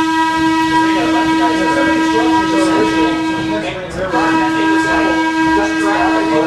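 Train air whistle blowing a long, steady one-note blast, breaking off about four seconds in and then sounding again, heard from inside a passenger coach with the coach's running noise underneath.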